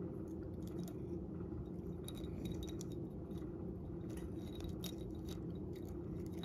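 Cat crunching dried sardines, with the dry little fish clicking and rattling against a glass jar as it pulls them out with its mouth and paw: irregular crisp clicks and crunches over a steady low hum.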